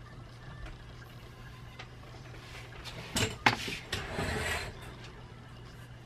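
A few sharp knocks and then about a second of close rustling near the microphone, about three seconds in, over a steady low hum.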